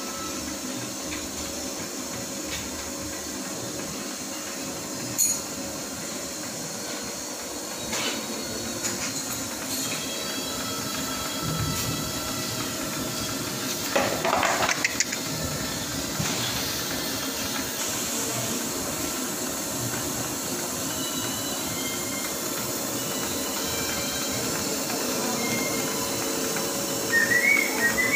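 Semi-automatic long cotton wick machine running steadily: a motor hum under a hiss, with a few scattered knocks and a short run of high chirping notes near the end.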